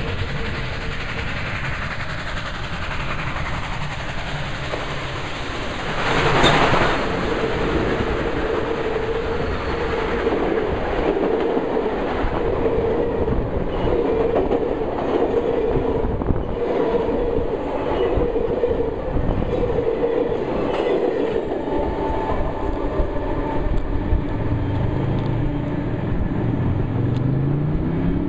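Union Pacific 844, a 4-8-4 steam locomotive, approaching and passing at speed, with a loud rush about six seconds in as the engine goes by. Then its passenger cars roll past with a steady rumble and the clickety-clack of wheels over the rail joints.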